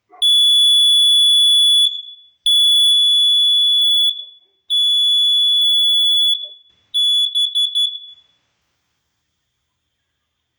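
Kidde carbon monoxide alarm sounding on test: a loud, piercing high tone in three long blasts of under two seconds each, then a short stuttering run of beeps before it stops.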